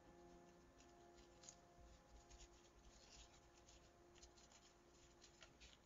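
Faint rustling and scratching of a sheet of paper being folded and creased by hand, in short irregular strokes.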